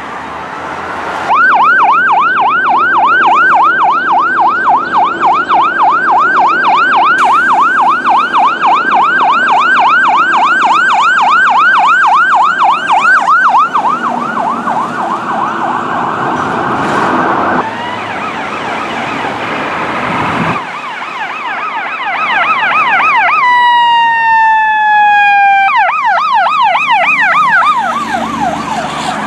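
Emergency vehicle's electronic siren on yelp, a fast rising-and-falling sweep repeating about three times a second, with a stretch of slower wail. Later a second siren yelps, broken for about two seconds by a horn blast whose pitch slides down as the vehicle passes.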